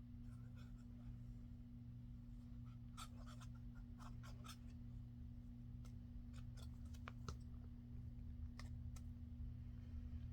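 Paper being handled on a craft table: faint scattered scratches, rustles and small taps in two short clusters, over a steady low electrical hum.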